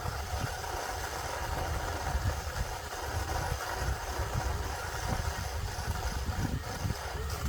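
40v Black & Decker battery chainsaw running at a steady speed, its electric motor and chain giving a continuous whine. It starts abruptly and cuts off suddenly near the end.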